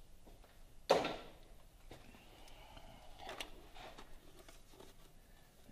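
A single sharp clack about a second in, then a few faint clicks and rustling: hands working the knock sensor wiring harness and its clips loose in the engine valley.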